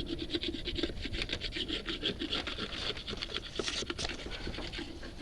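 Quick repeated scraping strokes, several a second, working off leftover hive residue from a surface.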